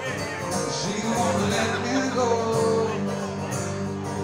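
Acoustic guitar strummed steadily in an instrumental passage between sung verses of a live solo song.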